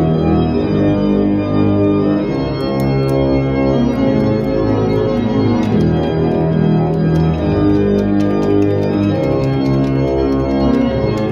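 Organ music playing held chords that change every second or so, with a light ticking beat over them.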